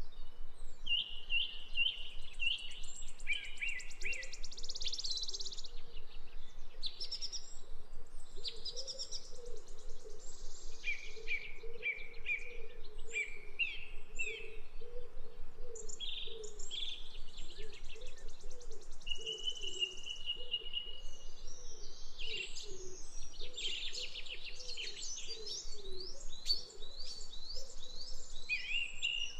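Songbirds singing, with many short chirps, trills and repeated phrases, over a lower wavering note that runs through most of the stretch.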